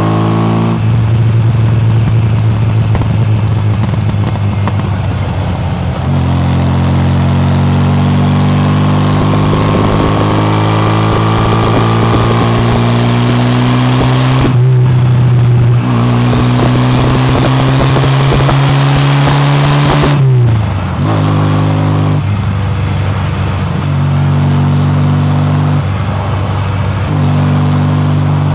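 Classic MG Midget's four-cylinder engine and exhaust under way on the road. The note climbs gradually, then drops sharply about two-thirds of the way through and settles into a steady cruise.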